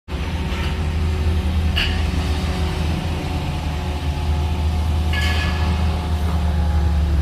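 Heavy diesel earthmoving machine, likely the bulldozer, running steadily with a deep, low rumble. Two short high-pitched metallic squeals come through, about two seconds in and again about five seconds in.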